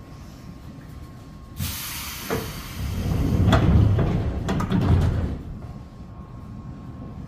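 205-series electric train at the station: a sudden sharp hiss of compressed air about one and a half seconds in, then a few knocks and a low rumble as its pneumatic sliding doors close, fading out near the end.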